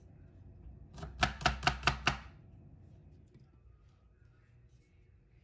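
Kitchen knife chopping garlic cloves on a wooden cutting board: a quick run of about six chops, about five a second, starting about a second in.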